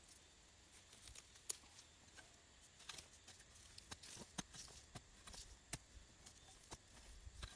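Faint, scattered rustling with small sharp clicks and snaps, irregularly spaced, over near silence.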